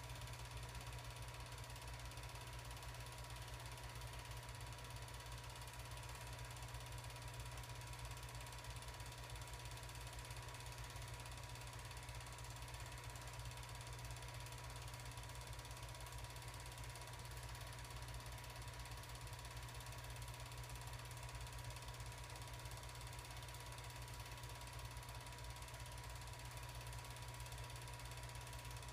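An 8mm film projector running: the steady, fast mechanical clatter of its film-advance mechanism, unchanging throughout, with a faint steady high tone.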